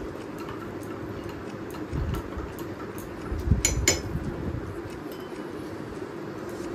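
A metal spoon stirring in a glass mug, with light clinks against the glass, then two sharper clinks about three and a half seconds in.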